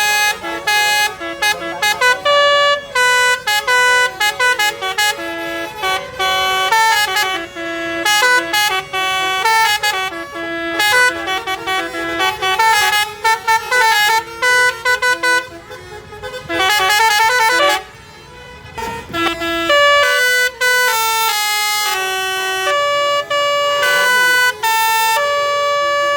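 Basuri telolet bus horn playing a quick melody of short notes that change pitch several times a second, with a brief break about eighteen seconds in, followed by longer held notes.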